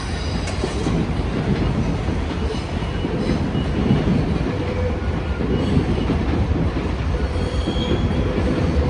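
Train passing close by: a steady rumble of wheels on rails, with a faint high-pitched squeal now and then.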